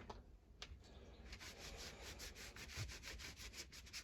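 Faint, quick, even scrubbing strokes, several a second, that start about a second in, after two light clicks: hand-cleaning a hedge trimmer part.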